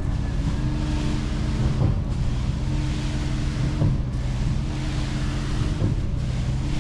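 Reed B50G concrete pump at work: its 7.3-litre Ford Godzilla gas V8 running steadily under load, with a short knock about every two seconds as the pump shifts strokes, and a steady hiss over it.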